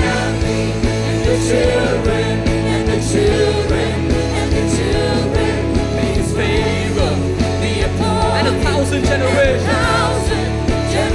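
Live worship band playing: male and female vocalists singing together, backed by drums, electric guitar and keyboards.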